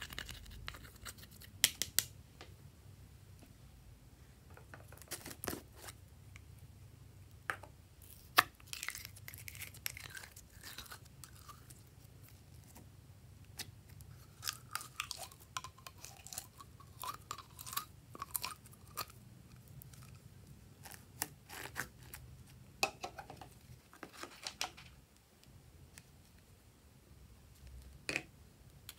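Close-up handling of slime ingredients: a silicone spatula scraping pressed eyeshadow out of a plastic palette, then sticky slime squelching as it is squeezed from its tub into the bowl. Scattered sharp clicks and taps of plastic containers, loudest about two seconds in and about eight seconds in.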